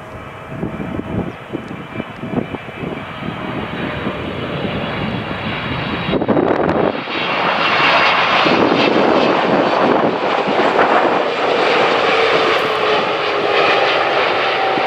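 Boeing 777-300ER airliner's GE90 jet engines on landing approach, a loud rushing roar that grows as the aircraft comes closer, stepping up sharply about six seconds in. In the second half a steady engine whine sits over the roar, sliding slightly down in pitch as the plane passes.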